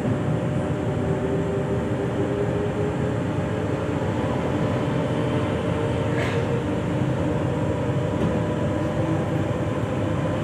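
Z 20500-series Z2N double-deck electric multiple unit standing at a platform, its onboard electrical equipment running with a steady hum and a few faint steady tones. A short faint hiss comes about six seconds in.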